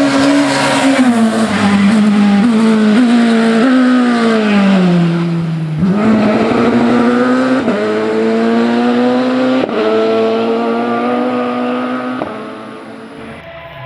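Race car engine at a hillclimb, revving hard. Its pitch falls in steps as the car slows for a bend, then climbs again through two gear changes as it accelerates away, and it fades near the end.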